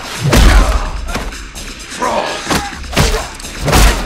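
Fight sound effects: a rapid series of punch and kick impacts, about six hits, the heaviest with deep thuds about a third of a second in and near the end.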